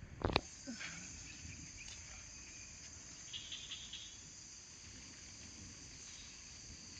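Steady high-pitched chorus of insects, with a brief cluster of chirps near the middle. A single sharp knock sounds just after the start and is the loudest thing heard.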